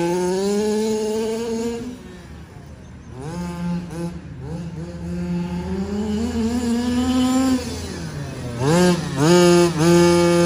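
Small two-stroke gasoline engine of a 1/5-scale FG monster truck revving up and down as the truck drives. It goes fainter about two seconds in, climbs again, gives a couple of quick throttle blips near the end, then holds high revs.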